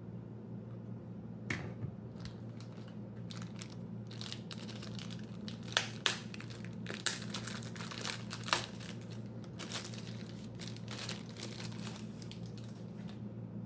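Knife packaging being handled and unwrapped: crinkling, crumpling rustles with several sharp clicks, busiest in the middle, over a steady low hum.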